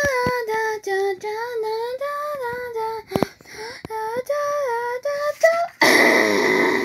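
A child's voice singing a short tune, note by note. About six seconds in it gives way to a loud, harsh vocal burst, a mouth-made crash sound effect.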